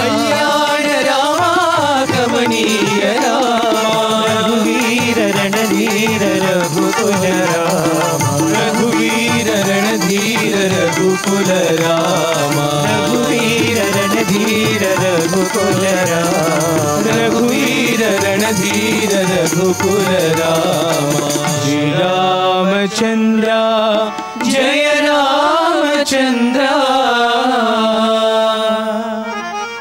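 Indian devotional bhajan music: a wavering melodic line over tabla accompaniment. The high, bright part of the accompaniment drops out about two-thirds of the way through.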